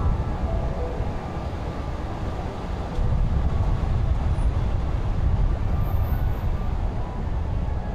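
A car driving, its tyre and wind noise making a steady low rumble that gets a little louder about three seconds in.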